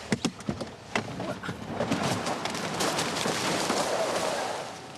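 A person tumbling and sliding down a slope of loose dirt and dry leaves: a quick run of knocks and clicks, then a scraping rush of dirt and leaves for about three seconds that stops fairly suddenly near the end.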